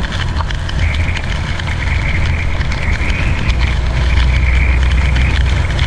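Semi-truck's engine and drivetrain droning steadily inside the cab while driving on a rain-soaked highway, with the hiss of rain and tyre spray over it.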